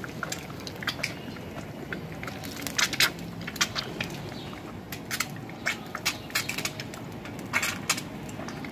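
Burning matchstick bundles crackling and popping under a pan of frying eggs, with sharp irregular pops several times a second over a steady low background.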